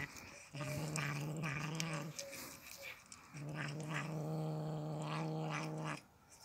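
Cat growling: long, steady, low growls, each a second and a half to two and a half seconds long, with two short breaks between them.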